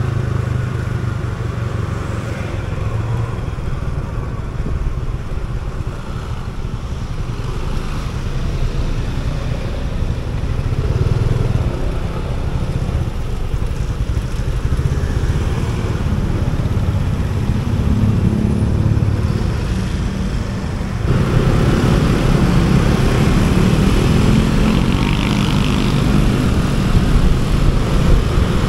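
Motor scooter engine running steadily under the rider, with city traffic noise around it. About 21 seconds in it gets louder and brighter as the scooter picks up speed, with more wind and road noise.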